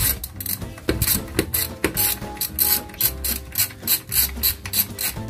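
Socket ratchet clicking in quick, even back-and-forth strokes, a few spaced clicks at first and then about four a second, turning the nut on the end of a front strut assembly to separate the old shock absorber from its coil spring.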